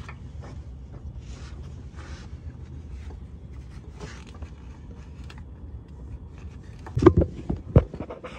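Gloved hands handling the new spin-on oil filter and brushing parts under the car: faint rustles and taps over a steady low rumble, then a cluster of loud knocks and clunks about seven seconds in.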